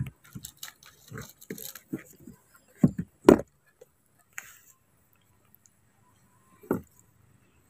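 Irregular knocks, bumps and scuffs of baby monkeys moving about and handling things right at the microphone, the loudest knock about three seconds in and one more thump near the end.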